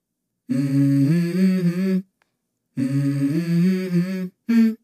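Background music: a wordless hummed vocal melody in two phrases with a silent gap between them, and a third phrase starting near the end.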